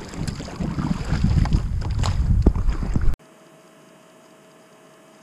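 Kayak paddling: paddle blades splashing in the water, with wind buffeting the microphone. It cuts off suddenly about three seconds in, leaving only a faint steady hiss with a thin hum.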